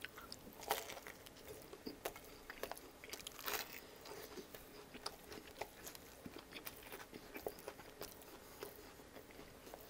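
Faint, close-miked biting and chewing of a toasted bagel BLT sandwich. Soft chewing with scattered small crunches, the sharpest about a second in and again about three and a half seconds in.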